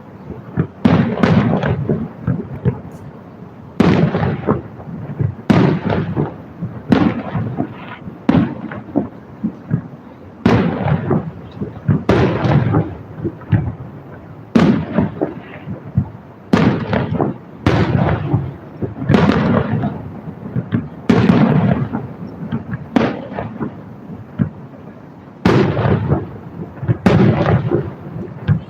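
Aerial fireworks shells bursting in a steady barrage, about one loud bang every second or two. Each bang is followed by a rolling, echoing rumble.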